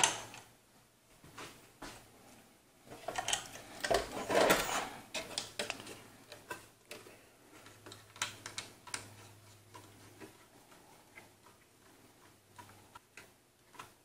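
Scattered clicks and taps from a CPU cooler's backplate mounting screw and a motherboard being handled, busiest about three to five seconds in, then a few faint ticks.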